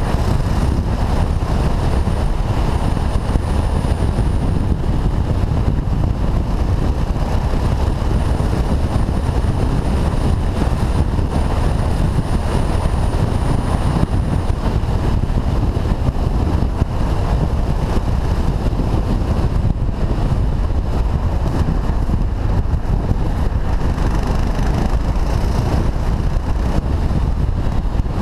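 Motorcycle riding in traffic: steady wind rush on a helmet-mounted camera, with the bike's engine running underneath.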